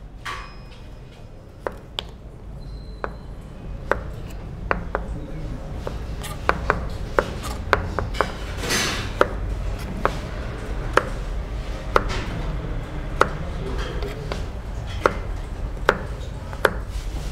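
Chef's knife slicing a carrot on a plastic cutting board: single sharp knocks of the blade meeting the board, at first about one a second and then every half second or so from about six seconds in. A low steady hum runs underneath.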